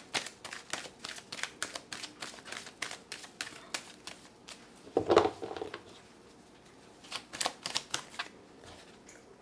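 A deck of tarot cards shuffled by hand, the cards clicking against each other in quick runs of several clicks a second, pausing and starting again. About five seconds in there is one brief louder sound.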